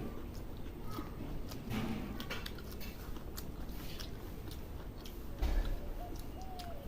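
Close-up chewing and eating sounds from a meal of rice, vegetables and omelette: wet mouth noises and many small irregular clicks, with a soft low bump about five and a half seconds in.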